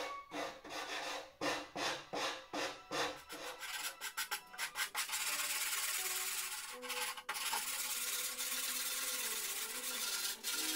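Hand sanding block with sandpaper rubbed along the edge of a plywood board. Short back-and-forth strokes come about two a second, then give way after about five seconds to steadier, continuous rubbing.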